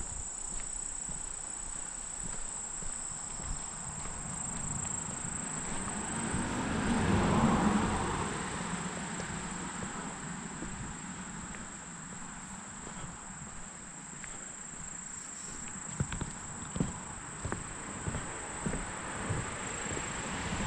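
A steady, high-pitched chorus of insects, crickets or similar, shrilling without a break. A broad rushing swell rises and fades about seven seconds in, and a few soft footsteps fall near the end.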